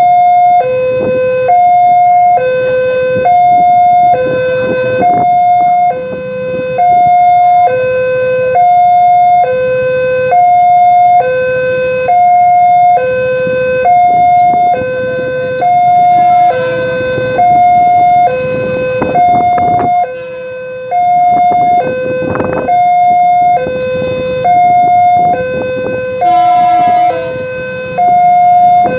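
Railway level-crossing warning alarm sounding, an electronic two-tone signal alternating a higher and a lower tone, one high-low pair about every two seconds. It signals that the crossing is closed for an approaching train.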